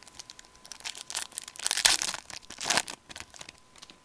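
Foil wrapper of a Fleer hockey card pack being torn open and crinkled in the hands: a run of crackles, loudest about two seconds in, with another sharp rip just before three seconds, then dying away.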